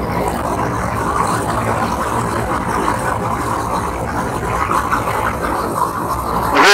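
Motorcycle engine running steadily while riding at cruising speed, with wind and road noise buffeting the rider's microphone.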